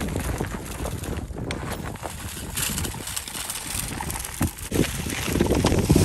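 Walk-behind broadcast salt spreader being pushed over an icy driveway: its tyres crunching over ice and packed snow, rock salt rattling as it is flung out, and rubber boots crunching along beside it. Louder near the end.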